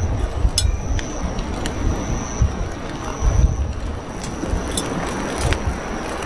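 Wind buffeting the microphone: an uneven low rumble that swells and eases, with a thin steady high tone and a few light clicks over it.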